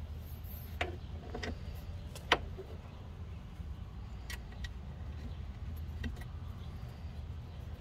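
Scattered light clicks and taps of small metal mounting hardware and tools being handled, with one sharp click a little over two seconds in, over a steady low hum.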